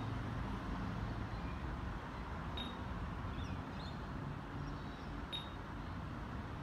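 Outdoor ambience: a steady low rumble of distant road traffic, with a faint short high chirp about every three seconds.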